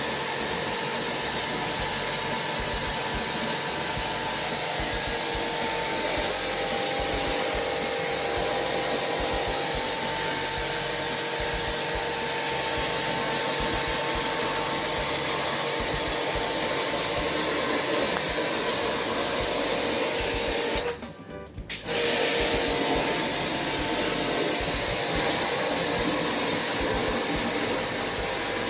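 Steady whirring drone of an electric motor-driven machine, with a few held tones over a noisy hiss, cut off briefly about 21 seconds in.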